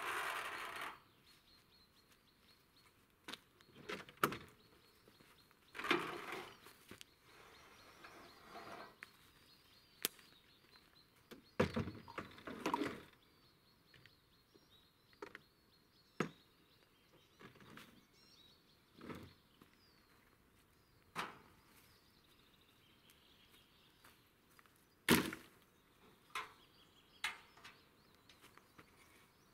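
An engine running stops within the first second. Then come scattered clunks and thuds as the chainsaw mill's aluminium rail and saw unit are handled and loaded onto a UTV's cargo bed, with faint bird chirps between them.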